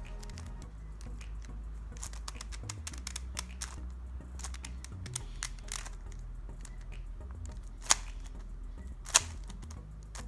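A 3x3 speedcube being turned by hand: quick runs of light plastic clicks as its layers turn, with two sharper snaps near the end. Soft background music plays underneath.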